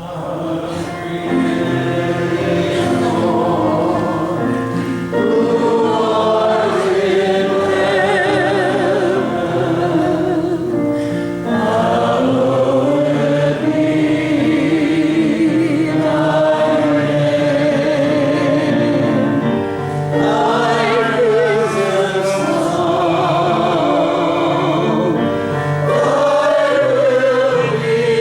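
Group of voices singing a hymn together in long held notes over instrumental accompaniment, starting within the first second.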